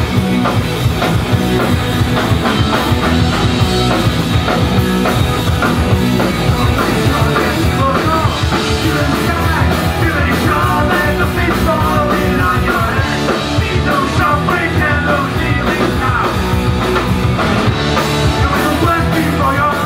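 Live rock band playing loud, with electric guitars and a drum kit, amplified through the room's PA.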